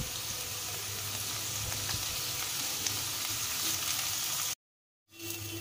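Potato, green bean and carrot pieces sizzling steadily in hot ghee in a nonstick kadai, with a wooden spatula stirring them. The sizzle drops out completely for about half a second near the end, then returns.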